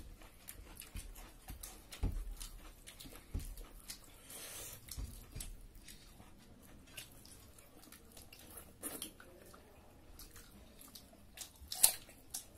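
Close-up wet chewing and lip-smacking of people eating duck curry and rice with their hands, made up of many small clicks. Near the end comes one loud crunch as a raw green onion stalk is bitten.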